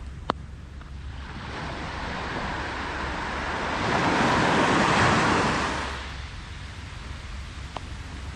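A sea wave breaking and washing up the beach: a rush of water that builds over a few seconds, peaks and fades away. Low wind rumble on the microphone underneath, and a sharp click just at the start.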